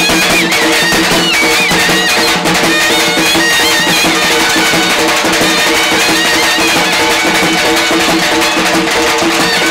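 Telugu folk music: a wavering high melody over a steady drone, with drums.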